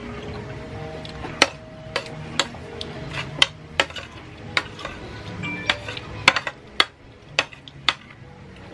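Metal spoon clinking and scraping against a plate as it stirs and scoops black bean sauce noodles: about a dozen sharp, irregular clinks. Soft background music plays underneath.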